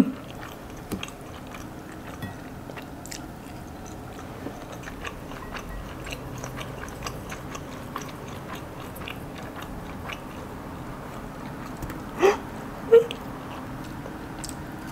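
A person chewing and eating spaghetti, with many small wet mouth clicks and smacks throughout. Two louder short sounds come about twelve and thirteen seconds in.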